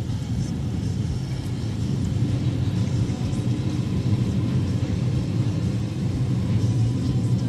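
Steady low rumble of a freight train of tank wagons rolling past over the rails, heard from inside a car, with faint ticks from the wheels.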